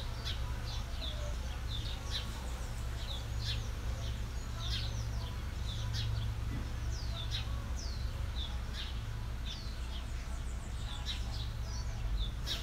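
Small birds chirping again and again, short quick downward chirps, over a steady low hum.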